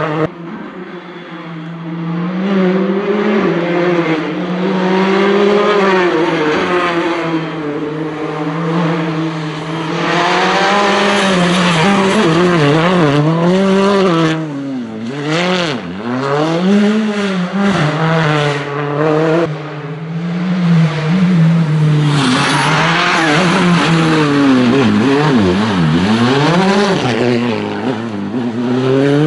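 Hyundai i20 rally car's turbocharged 1.6-litre four-cylinder engine driven hard, revving up and down through the gears. Its pitch rises and falls repeatedly, with short dips as the driver lifts off.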